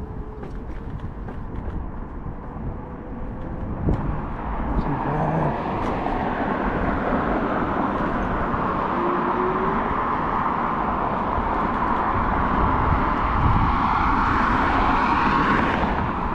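Wind rush and road noise on a moving electric scooter, picked up by a camera mic, louder from about four seconds in.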